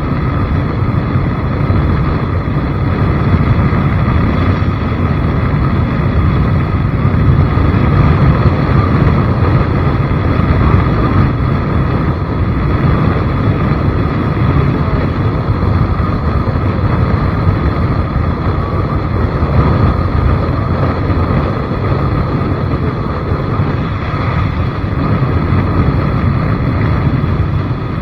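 Steady, loud rumble of a vehicle in motion, heavy in the low end, mixed with wind on the microphone during a ride.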